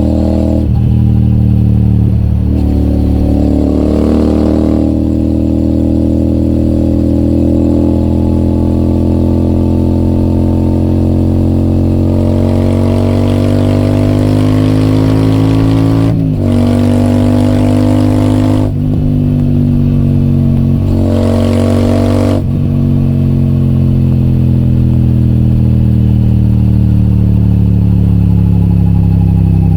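Royal Enfield Super Meteor 650's 648 cc parallel-twin engine breathing through an AEW TE 202 aftermarket exhaust, under way. The engine pulls up slowly in revs, then shifts up three times in quick succession in the middle, each shift a brief break in the note. Near the end the revs fall slowly.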